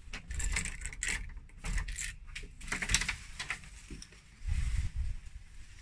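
A bunch of keys jangling and clicking as a key is worked in a brass cylinder lock and the wooden front door is unlocked and opened, with a dull bump about four and a half seconds in.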